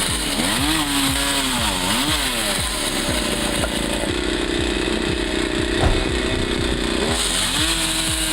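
Chainsaw engine, on a chainsaw set up as a fixed cutting station, revving up and down several times. It then holds a steady high speed for a few seconds and revs up again near the end.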